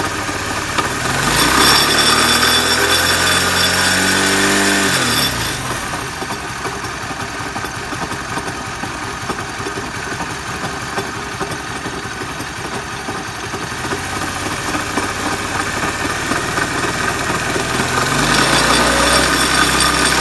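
Chinese-made engine running with an abnormal noise: it is revved about a second in, drops back to a steady idle after about five seconds, and is revved again near the end.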